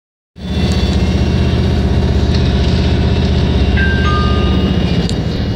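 City bus engine running with a steady low drone, heard from inside the passenger cabin. About four seconds in, a two-note electronic chime sounds, the second note lower than the first.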